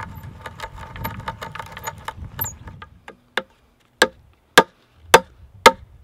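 A hand brace turning a 3/4-inch auger bit into a softwood timber: a dense run of creaks and rattling ticks. About halfway through this stops, and a 3/4-inch wooden dowel is driven into the bored hole with the poll of a carpenter's axe, about five sharp knocks roughly two a second.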